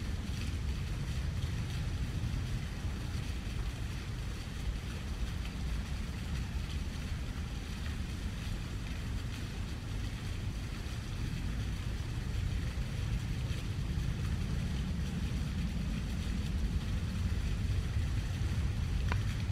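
Steady low outdoor rumble with a faint hiss above it, even throughout with no distinct events.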